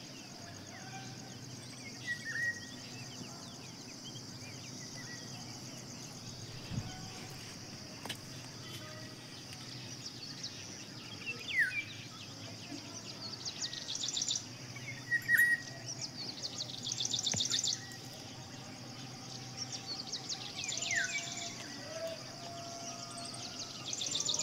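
Birds calling: short chirps and quick downward-sliding calls, with a rapid pulsed trill repeated four times in the second half, over a steady high-pitched buzz.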